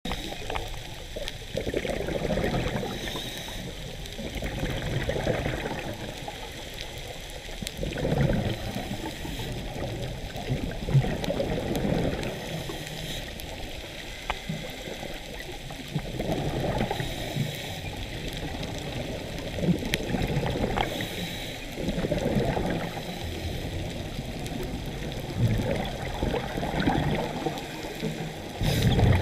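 Underwater breathing of a scuba diver: bursts of exhaled bubbles gurgling every few seconds, alternating with fainter hisses of the regulator on each breath in, muffled through the camera's underwater housing.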